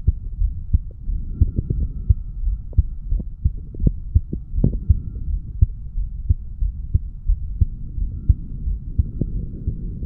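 A man's heartbeat recorded against the chest at the mitral valve area, just after lifting weights: a regular run of short, low thuds, several falling in close pairs, over a continuous low rumble.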